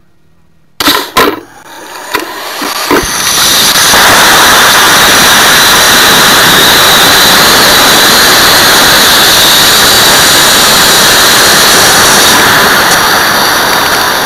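Rocket motor igniting right beside the microphone: two sharp cracks about a second in, then a loud, steady rushing roar that builds over the next few seconds and holds. The motor is burning through a failed forward closure instead of launching the rocket: a 2-grain reload was put in a 4-grain case without spacers.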